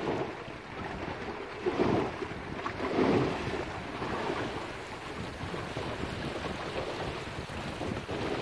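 Water rushing and slapping along the hull of a small wooden sailing boat under way, with wind buffeting the microphone. The water noise surges loudest about two and three seconds in.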